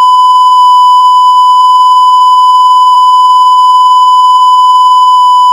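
Loud, steady electronic beep at a single pitch, dubbed in as a mock severe-storm warning alert tone.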